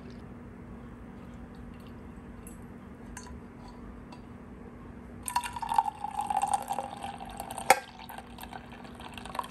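Brewed coffee poured from a glass Hario coffee server into a mug: a splashing stream for about two and a half seconds, its pitch sliding slightly down, ended by a sharp knock. Before the pour, only a few faint drips.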